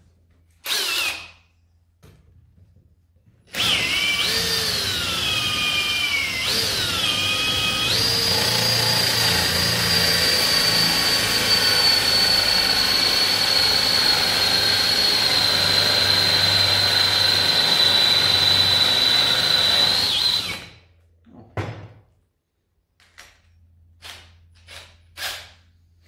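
Cordless drill with a hole saw cutting into a block of wood. After a short blip of the motor about a second in, the drill runs for about seventeen seconds. For the first few seconds its pitch dips and recovers as the cutter bites under load, then it holds steady, sinking slowly, before stopping. A few light knocks follow near the end.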